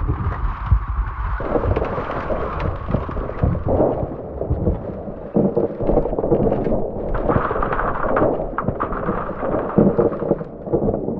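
Iceberg ice breaking and crashing: a low rumble with many sharp cracks and knocks, going on without a pause.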